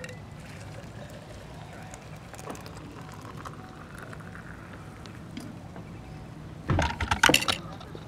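A hot drink poured from a metal camp pot into a stainless steel travel mug, the pour faint. About seven seconds in comes a loud burst of clattering knocks, the loudest sound here.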